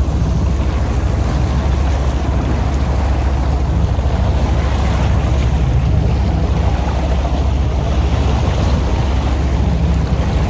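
Wind rumbling steadily on the microphone over open water, with waves washing around a small fishing boat.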